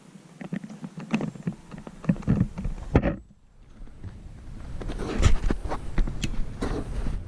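Footsteps with irregular scuffs and knocks. The sound dips out briefly about three seconds in, then comes back with a low rumble underneath.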